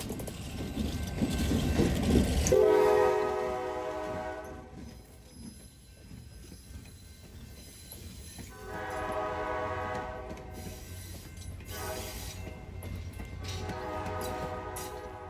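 Passenger train rumbling past, then a diesel locomotive's air horn sounding two long blasts, a short one and a final long one that fades out. That long-long-short-long sequence is the standard grade-crossing signal.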